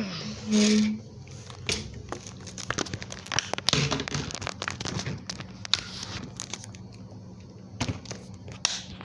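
Rustling, crinkling and scattered clicks of handling noise on a hand-held camera's microphone, with a brief louder pitched sound about half a second in.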